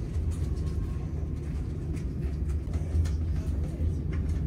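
Steady low rumble of a moving passenger train heard from inside the carriage, with faint clicks and rattles over it.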